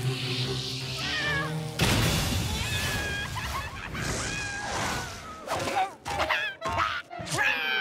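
Cartoon sound effects over background music: a sudden loud rushing blast about two seconds in, as a rocket launches. Then a cartoon cat yowls and screeches again and again, ending in a long falling screech.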